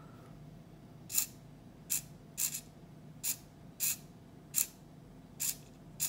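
Small hobby servo whirring in about seven short bursts, irregularly spaced, as it swings the RC car's front-wheel steering back and forth on gamepad commands.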